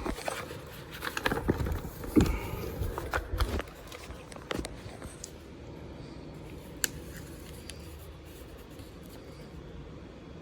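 Loose sheets of paper being handled and turned over: a run of small clicks, crinkles and scrapes over the first few seconds, then faint room tone with one more small click.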